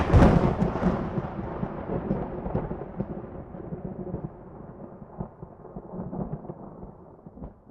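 A heavy cinematic boom that decays into a long, low rumble like rolling thunder, fading slowly, with a few faint swells and knocks in the last few seconds.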